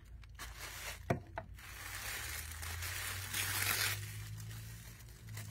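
Tissue paper rustling and crinkling as it is pulled open by hand, after a couple of light taps; the rustle swells about three and a half seconds in, then dies down.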